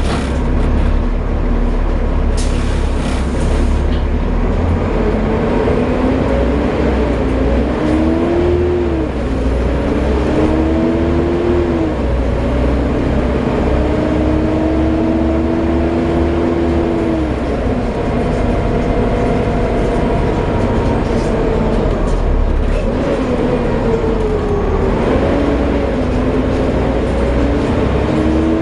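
Volvo B7TL double-decker bus's diesel engine and driveline running under way, with a loud vacuum-cleaner-like whine. The whine climbs in pitch several times as the bus pulls away and accelerates, drops back at each gear change, and sits over a steady low engine rumble.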